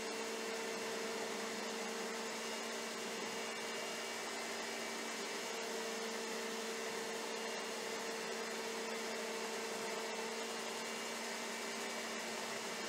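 Electric stand mixer motor running steadily, a constant hum with a few held tones, as it beats a heavy cream and half-and-half ice cream base until it thickens.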